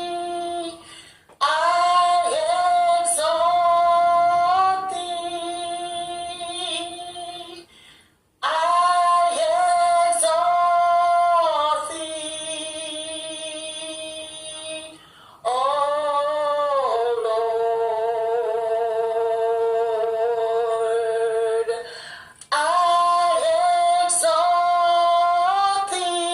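A woman singing a slow praise-and-worship song, apparently unaccompanied, in long held phrases with short breaks between them.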